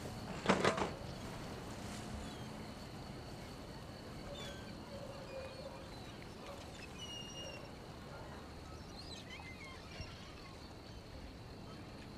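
Quiet outdoor night ambience with faint, scattered bird chirps over a steady high tone, opened by a short, loud burst of noise about half a second in.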